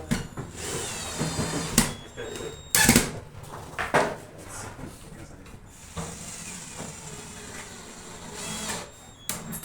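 Workshop sounds while assembling furniture: a cordless drill whines in short runs, and wooden boards or panels knock sharply a few times, loudest about three seconds in.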